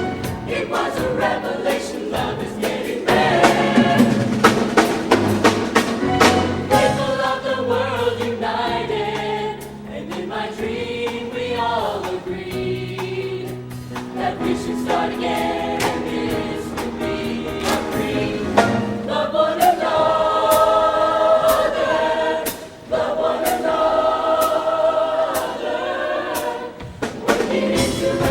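Show choir singing in harmony, backed by a live band with a drum kit keeping a beat.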